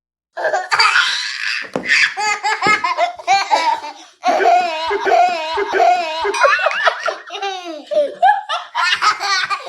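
A baby laughing hard in quick runs of high-pitched giggles that rise and fall in pitch, starting just after a moment of silence, with a brief pause about four seconds in.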